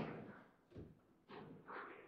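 Table football play: the hard ball and plastic players and rods knocking, a sharp knock at the start that dies away, a lighter knock under a second in, and softer rattling near the end.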